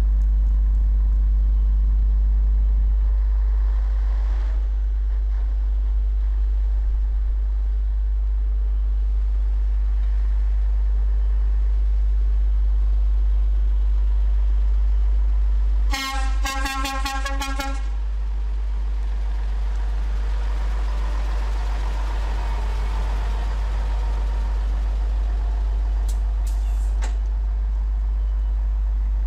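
A 1978 Scania 111 truck's straight-six diesel engine running with a steady low rumble as the truck drives about. A little past halfway its horn sounds in a quick string of short toots lasting nearly two seconds.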